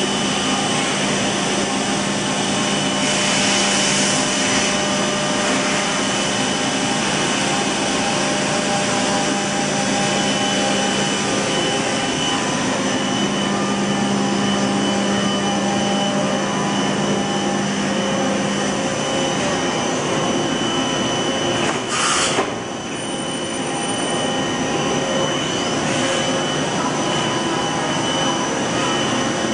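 Steady hum and whine of running industrial machinery, with several steady tones over a noisy background; a low hum drops out about 19 seconds in, and a single sharp knock sounds about 22 seconds in.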